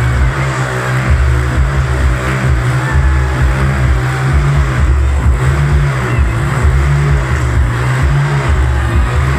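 Motorcycle engines revving as the bikes circle inside a steel-mesh globe of death, mixed with loud music that has a heavy bass beat.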